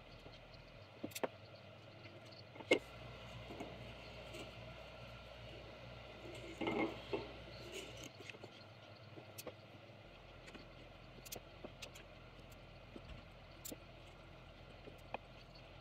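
Scattered light taps and clicks of small wooden hexagon pieces and a stainless steel tumbler being handled and set down on a workbench, with one sharper knock about three seconds in and a brief scuffing noise near the middle.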